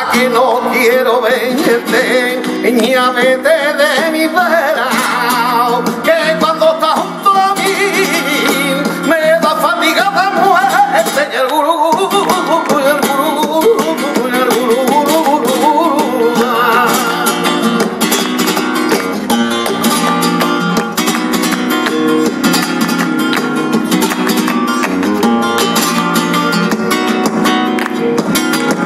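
Flamenco tangos: a male cantaor sings over a flamenco guitar and steady palmas (hand-clapping). About twelve seconds in the singing stops, and the guitar carries on with the palmas.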